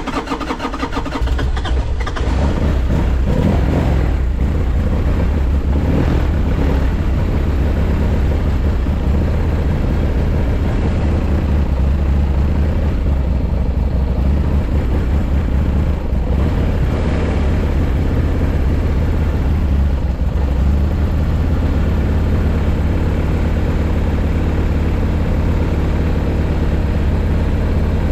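Buell X1 Lightning's air-cooled 1203 cc V-twin running with a steady low throb, getting louder over the first couple of seconds. The seller presents it as running without abnormal noises.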